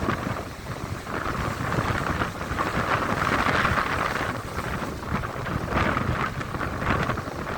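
Sea waves breaking and washing up a beach in a steady rush that swells to a peak about halfway through, with wind rumbling on the microphone.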